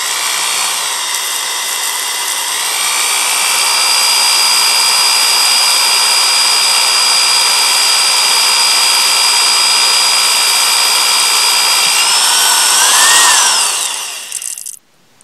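Corded electric drill running steadily as its twist bit bores through PVC pipe and coupling, a steady motor whine. About twelve seconds in the whine rises in pitch, then the motor winds down and stops.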